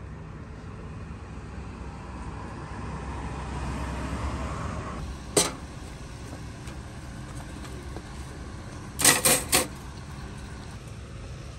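Steady traffic rumble, with a vehicle passing and swelling a couple of seconds in. About halfway comes a sharp metal clack, and near the end three quick clacks: metal tongs knocking against a stainless steel food pan.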